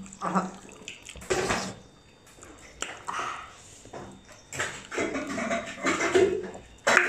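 Wet chewing and mouth sounds of a person eating dhido and sukuti by hand, coming in irregular short bursts with quiet gaps between.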